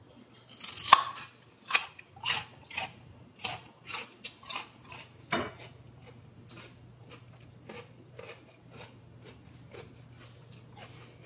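Raw radish bitten with a sharp crack about a second in, then chewed with crisp crunches about twice a second, loud for several seconds and fainter after.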